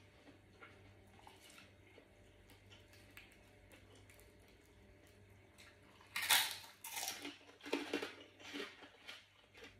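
Faint chewing, then from about six seconds in a run of loud, crisp crunches close together as a deep-fried pork rind (khaep mu) is bitten and chewed.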